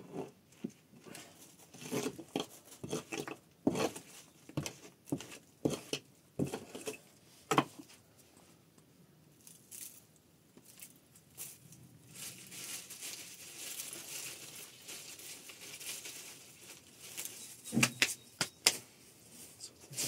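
Scattered knocks, clicks and crinkling of objects being handled, with a steady hiss coming in for several seconds in the second half and a few sharp clicks near the end.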